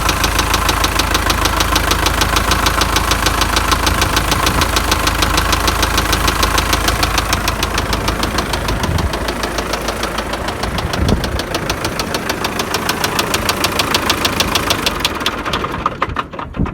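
MTZ tractor diesel engine running with a steady, rhythmic knock that has newly appeared; it is shut off near the end. Others suggest a cracked crankshaft or loose valve keepers.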